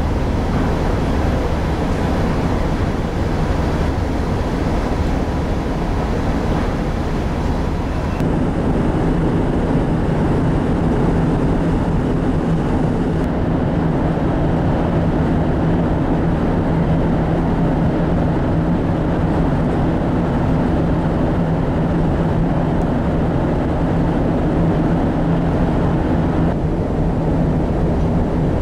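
Steady low drone of the car ferry Settsu's engines and machinery heard from the open deck, with a steady hum and a wash of noise over it. About eight seconds in the sound shifts abruptly, the hum growing stronger and the hiss duller.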